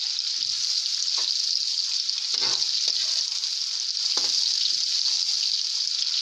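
Sliced onions frying in hot ghee in a steel karahi, a steady sizzle, while a spatula scrapes and stirs them against the pan about five times.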